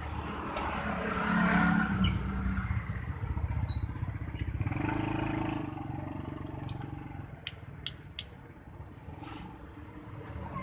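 A motor vehicle engine, likely a motorcycle, running as a low rumble that swells over the first two seconds and then slowly fades. Several sharp clicks and a few brief high chirps are heard over it.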